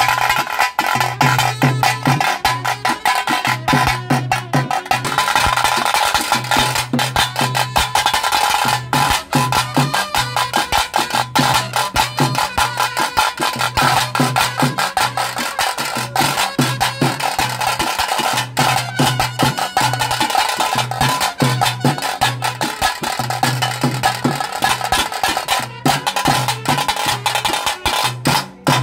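Loud drum-led music for a pili vesha (tiger dance): fast, dense drum strokes over a steady high drone and a low bass note that pulses in a repeating pattern.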